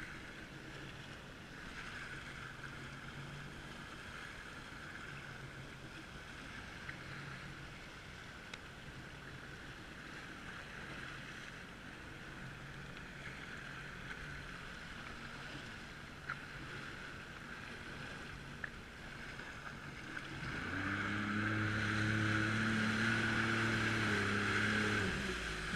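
Jet ski engine running with water and wind noise. About twenty seconds in the engine comes up louder, a steady drone for several seconds, then falls away.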